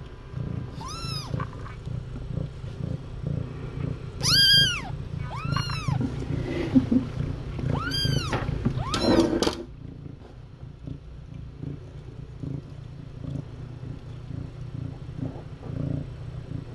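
Kittens meowing, about five high-pitched, rising-and-falling meows in the first ten seconds, over a cat's steady low purring that carries on after the meows stop.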